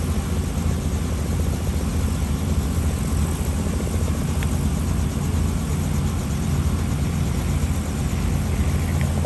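Small two-bladed Robinson R44 helicopter idling on the ground: its engine runs and its main and tail rotors turn at low speed, giving a steady low drone with a rapid chop.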